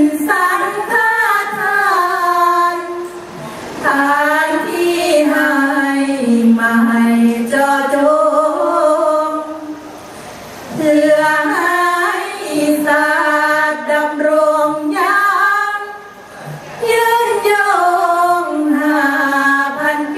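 Thai sarapanya (สรภัญญะ) chanting: a group of women sing a Buddhist verse unaccompanied, in long held notes that waver and glide. There is a brief pause for breath about halfway through.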